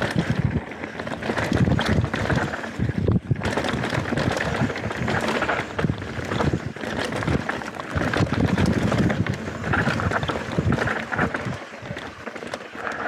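Wind rushing over the camera microphone while a mountain bike descends a dirt trail, its tyres rolling on dirt and its frame and chain rattling with frequent knocks over roots and bumps. The low rumble of the wind eases off near the end.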